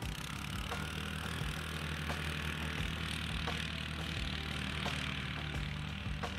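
Quad ATV engine running steadily as the four-wheeler drives along a dirt track.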